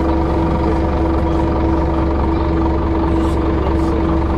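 City bus engine idling while the bus stands still, heard from inside the passenger cabin: a steady low hum with one constant tone.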